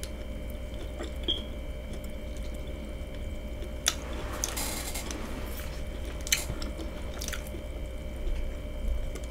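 A person chewing food quietly, with a few sharp wet mouth clicks and a brief soft hiss about halfway through, over a faint steady hum.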